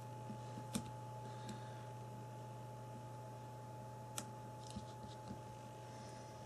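Faint small clicks and taps as a part is prised off inside a Samsung Galaxy Ace S5830i phone being taken apart, about six scattered ones, the sharpest about a second in and about four seconds in, over a steady low electrical hum.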